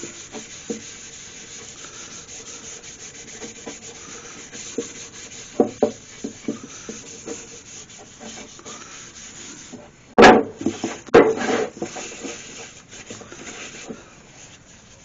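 A cloth rubbing finishing oil into an oak block in steady strokes, with small scattered taps of the wood on the bench. Two sharp knocks about ten and eleven seconds in.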